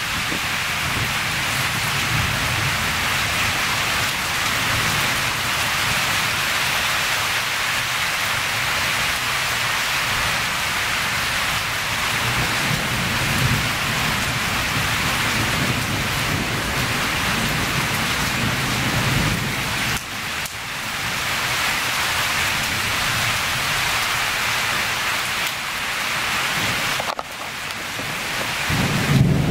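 Heavy rain falling steadily in a storm, a dense even hiss, with low rumbles of thunder swelling and fading underneath.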